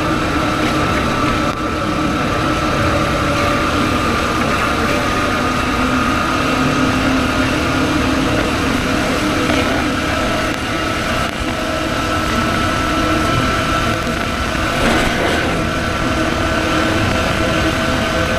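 Motorcycle engine running at a steady speed under a dense rush of wind and road noise, with no sharp changes.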